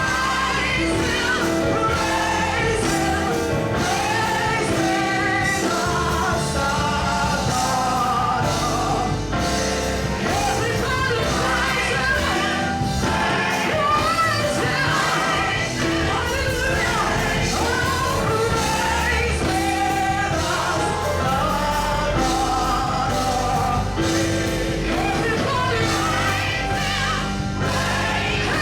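Gospel music with voices singing over a live band.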